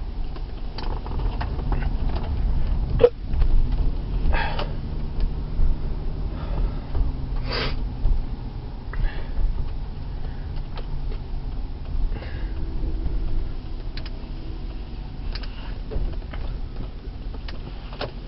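A man hiccupping now and then, a few single hiccups over a steady low rumble like a vehicle running, with a sharp click about three seconds in.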